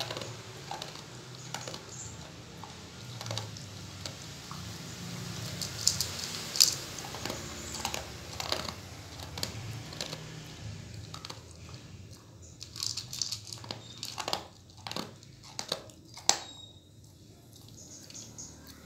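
A dog crunching and chewing dry kibble from a bowl, with irregular sharp crunches, a few of them much louder than the rest.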